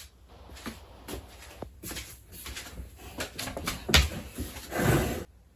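Assorted small knocks, clicks and rustles of household items being handled, with a sharper knock about four seconds in and a louder rustling burst just before the end.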